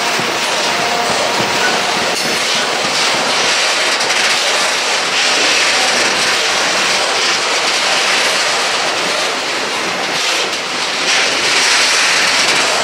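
Freight train of covered hopper wagons rolling past: a loud, steady rush of steel wheels running on the rails.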